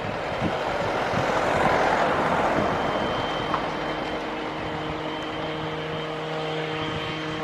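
Boeing 787-8 Dreamliner's jet engines at takeoff power as the airliner climbs away: a broad roar that swells to its loudest about two seconds in, then eases into a steadier roar with a hum and whine of several held tones. Wind buffets the microphone in the first second or so.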